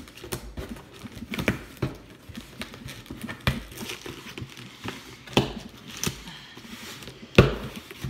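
Packing tape being picked at and peeled off a cardboard box, with the cardboard flaps handled: irregular scratching, tearing and knocking against the cardboard, the loudest a sharp knock near the end.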